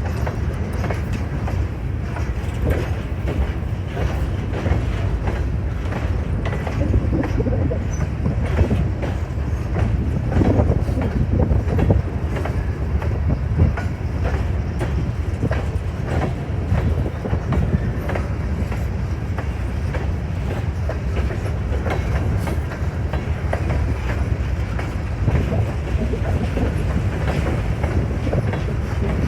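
Freight grain train rolling past, its wheels clicking and clacking steadily over the rail joints above a continuous low rumble.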